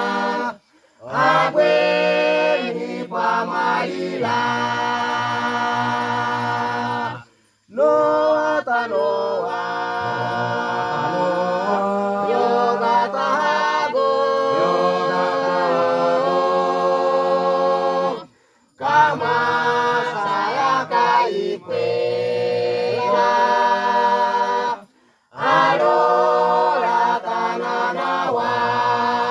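A mixed choir of men and women singing unaccompanied in the Misima language, in held chords. The singing breaks off briefly between phrases, four times.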